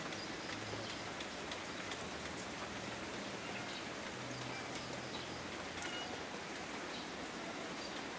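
Steady, continuous rain falling, an even hiss with no let-up, with a few brief faint high chirps scattered through it.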